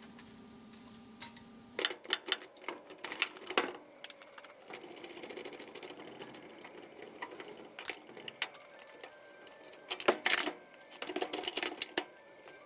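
Bursts of metallic clicks and knocks as a rear diff housing and its four-link control arms are fitted back under a car, with short quieter gaps between.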